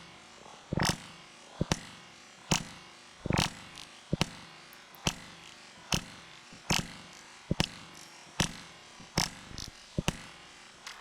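Ruger Charger .22 LR pistol fired in a steady string of about twelve shots, roughly one shot every 0.8 seconds.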